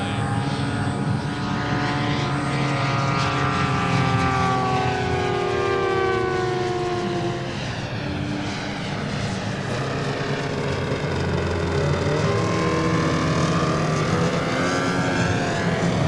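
JetCat turboprop engine of a 1:3 scale Grob G 120TP RC model turning its five-blade propeller in flight: a continuous whine and propeller drone. Its pitch slides slowly down through the first half, dips briefly, then rises again near the end.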